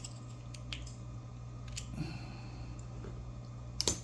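A few light, sharp clicks and taps from small padlock parts being handled, the loudest near the end, over a steady low hum.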